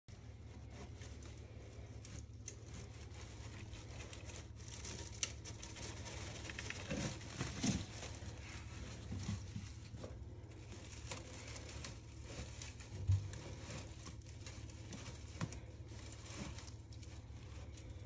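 Plastic bag and flexible foil dryer duct crinkling and rustling as they are handled, with a few sharper knocks; a steady low hum underneath.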